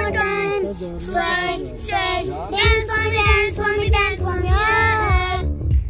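A young girl singing a song, with a steady low hum underneath.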